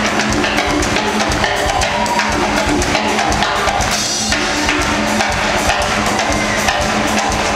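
Live band playing an instrumental groove: drum kit and Latin hand percussion beating out a dense rhythm over a steady electric bass line.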